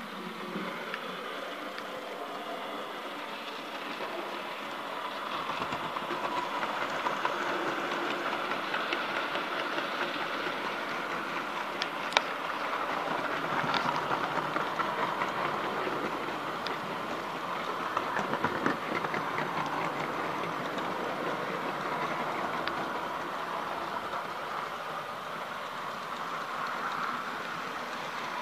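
Model GWR ROD 2-8-0 locomotive running along the track: a steady whirring run of motor and wheels on rail, growing louder through the middle and easing off again, with a few sharp clicks.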